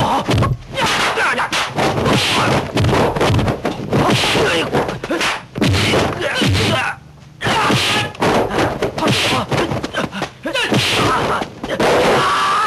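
Kung fu film fight soundtrack: rapid dubbed punch and kick impact effects, packed close together, mixed with the fighters' shouts and grunts, with a brief break about seven seconds in.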